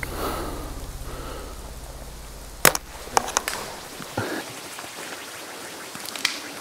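A bow shot: one sharp crack about two and a half seconds in, followed by a few lighter snaps and rustles. A low hum fades out over the first two seconds.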